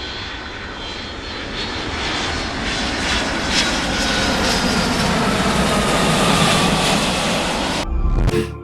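Aircraft engines running loud and steady, with a faint whine slowly falling in pitch as the sound builds, then cutting off suddenly near the end into a brief low rumble.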